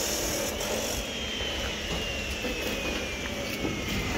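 Steady building-site machine noise, with a faint whine that slowly falls in pitch.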